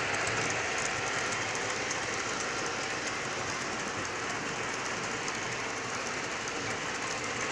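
O scale model diesel locomotive and passenger cars running on the layout's track: a steady rolling noise of wheels and motors, with faint clicks.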